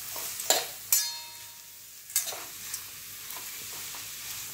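Shredded cabbage and green capsicum sizzling in oil in a steel kadai while a metal spatula stirs them, scraping and knocking against the pan several times. One knock, about a second in, leaves a brief metallic ring.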